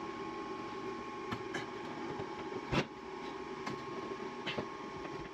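Stair-climbing hand truck loaded with a heavy water softener knocking up wooden stair edges: a few sharp knocks, the loudest about three seconds in, over a steady machine hum.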